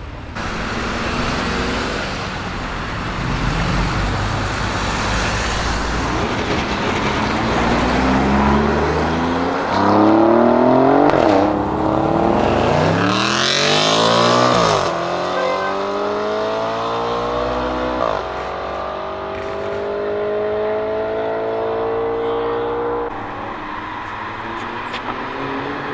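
Alfa Romeo Giulia Quadrifoglio's 2.9-litre twin-turbo V6 accelerating hard through the gears. The engine note climbs and drops sharply at three quick upshifts near the middle, then settles into a steadier rising note as the car pulls away, with a low rumble before the run.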